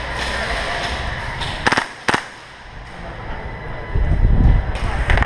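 Airsoft gunfire: a quick burst of sharp cracks a little under two seconds in, then a single crack, over steady background noise of the indoor arena. Near the end there is a loud low rumbling thud.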